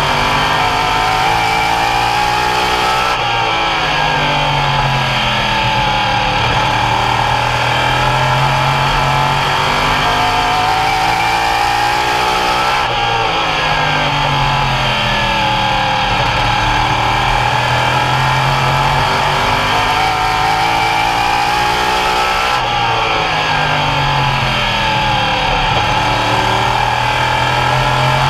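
Open modified race car engine at racing speed, lifting and dropping in pitch three times, about every ten seconds, then winding back up and climbing steadily each time: the corner-by-corner rhythm of laps around a short oval.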